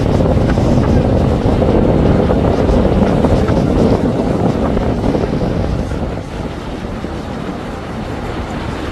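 Motor yachts passing close, their engines running under the rush of churning wake water, with wind buffeting the microphone. The sound eases a little about six seconds in.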